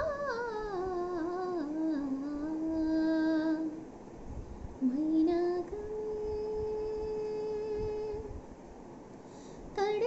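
A woman singing solo into a close earphone microphone: a falling, wavering run, then long held notes with a short break between phrases.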